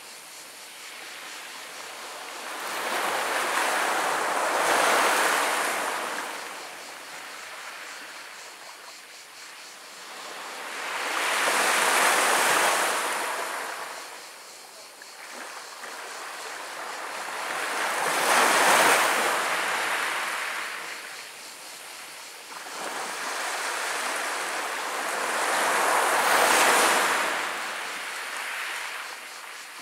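Gentle Mediterranean waves washing up a pebble beach and rolling over the pebbles, rising and falling in four surges about seven seconds apart.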